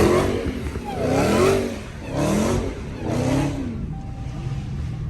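Supercharged Hellcat V8 muscle car accelerating hard, its engine note climbing and dropping about four times in quick succession, then settling to a quieter, steady run near the end.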